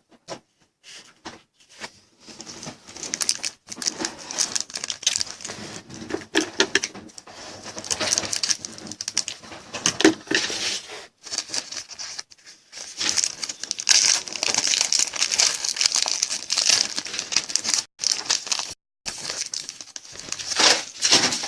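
Foil trading-card pack wrapper being crinkled and torn open, a dense, irregular crackle that stops and starts.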